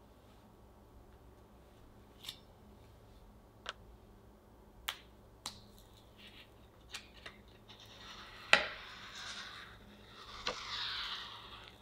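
Light clicks and taps of a heart-shaped cake mold being worked off a chilled crepe cake. Toward the end comes one sharp click, then a crinkling rustle of a thin plastic sheet being peeled from the cake's side.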